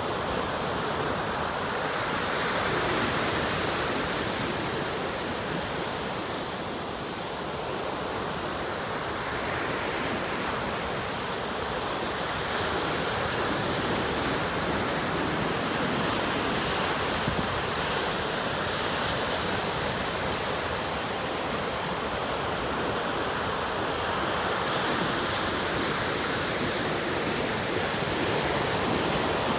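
Atlantic Ocean surf: a steady rush of waves breaking and washing ashore, swelling and easing slowly every several seconds.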